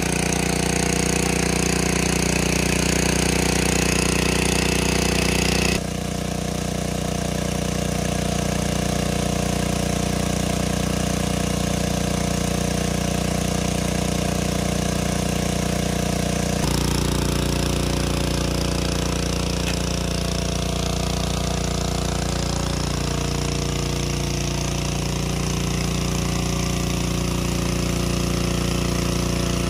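Small engine-driven water pump running steadily under load, pumping water out of the pool; its tone shifts slightly about six and seventeen seconds in.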